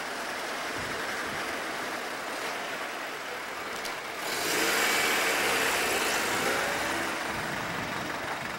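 Street traffic: a motor vehicle's engine running, with a noisy swell about four seconds in that eases off again a few seconds later as traffic passes close.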